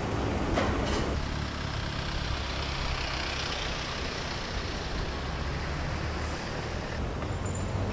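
A pickup truck driving slowly past, its engine and tyre noise swelling in the middle and easing off about seven seconds in.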